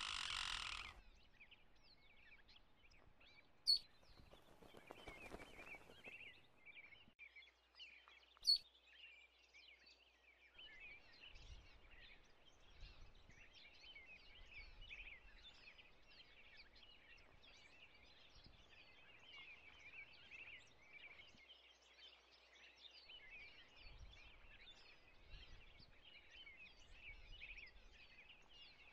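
Faint, dense chirping of many birds, going on throughout. A short rush of noise opens it, and two sharp clicks stand out about four and eight seconds in.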